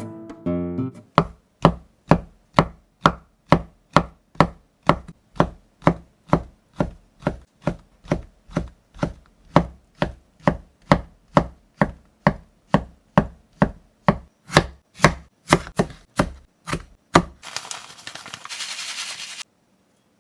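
Knife chopping on a cutting board in a steady rhythm of about two strokes a second, stopping near the end. A short hissing noise follows for about two seconds.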